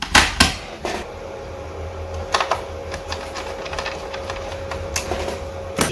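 A few sharp clicks and knocks, the loudest two in the first half second, over a low steady hum, with a thin steady tone from about a second in until just before the end.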